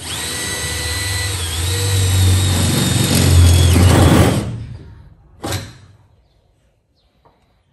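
Cordless drill running for about four and a half seconds as it bores a bolt hole through a race car's floor decking, its motor whine dipping once under load and a low rumble growing near the end; a short second squeeze of the trigger about five and a half seconds in.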